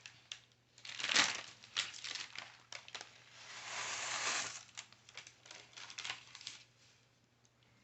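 Paper crinkling and rustling in several short handlings, with one longer rustle about four seconds in, dying away near the end.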